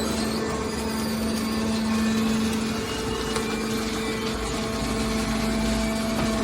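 Hydraulic metal baler's power unit running with a steady hum, with a deeper rumble added for a couple of seconds past the middle.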